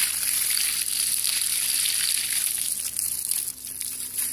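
Water from a garden hose pouring and splashing onto a bed of wet charred wood chips (biochar), a steady hiss that turns briefly quieter about three and a half seconds in.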